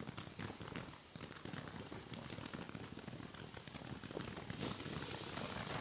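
Low-noise category F2 garden firework fountain burning, a steady fizzing crackle of many small sparks.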